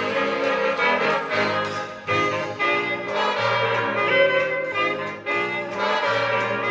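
Instrumental jazz with brass (trumpet and trombone) playing the melody over a bass line, played back through a Klangfilm field-coil loudspeaker.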